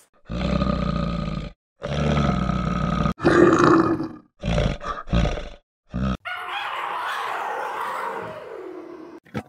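A string of deep, rough animal calls, each about a second long and cut apart by short silences, followed about six seconds in by a longer call that falls in pitch.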